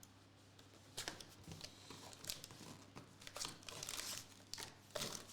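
Foil wrapper of a trading-card pack being torn open and crinkled by hand, in irregular crackles starting about a second in.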